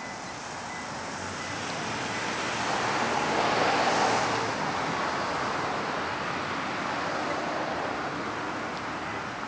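Road noise from a passing vehicle: a rushing sound that swells to a peak about four seconds in, then eases into a steady rush.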